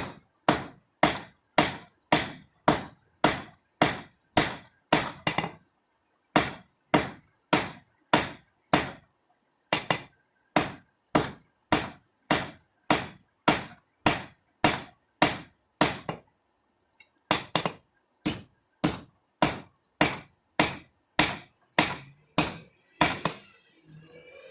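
Blacksmith's hand hammer striking hot rebar stock on an anvil while forging a knife blank. The blows come in steady runs of about two a second, with a few short pauses between runs.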